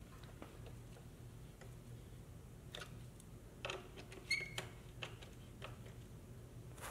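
Faint clicks and taps of a motorcycle's plastic bodywork panel and its bolts being handled and fitted by hand, with a few louder clicks and a short squeak about four seconds in.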